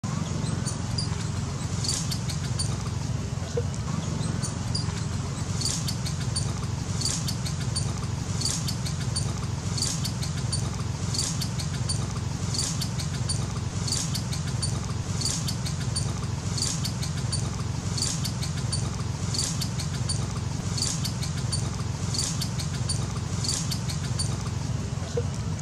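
Outdoor ambience: a steady low rumble with a short, high chirping call repeating evenly about every one and a half seconds.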